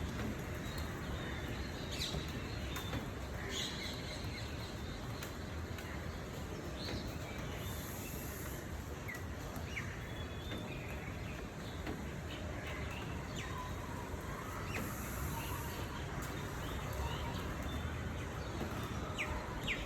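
Outdoor ambience of scattered short bird chirps and calls over a steady low background rumble, with a brief high hiss twice, about seven seconds apart.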